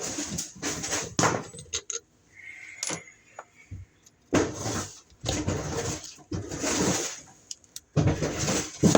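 Handling noise from work on an electrical outlet: irregular rustling and scraping, with sharp clicks and clinks of small metal parts and tools.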